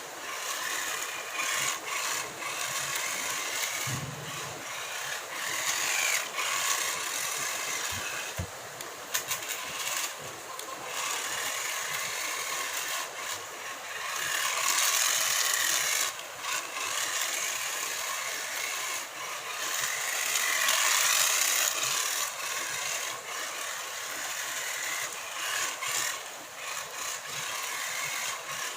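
Tiny 1:43-scale RC car's small electric motor and gears whining. The high pitch rises and falls as the throttle is worked, with a few short pauses and clicks.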